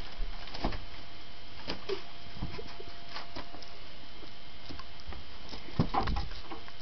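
Scattered soft knocks and taps in a small room, a few close together about six seconds in.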